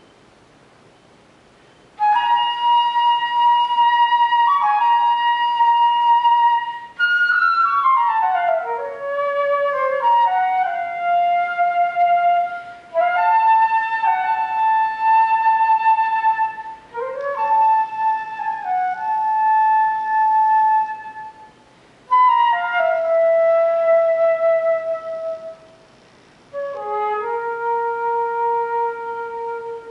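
Solo concert flute playing slow, free-flowing phrases with sliding pitches and short pauses between them, coming in about two seconds in and settling on a long-held low note near the end.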